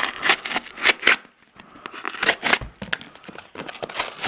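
Flat cardboard mailer being cut and pulled open by hand: irregular scrapes, crackles and tearing of cardboard, with the paper packing slip rustling, and a brief lull about a second in.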